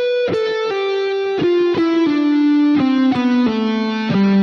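Electric guitar with a Telecaster-style body playing a descending single-note line in C major, about two notes a second, stepping steadily down in pitch. It is a legato exercise that picks only some of the notes on each string and sounds the rest with pull-offs.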